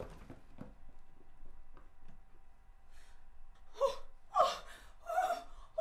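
A pregnant woman gasping in short, pained breaths, starting about four seconds in, as in labour. Before that, a quiet room with a few faint clicks.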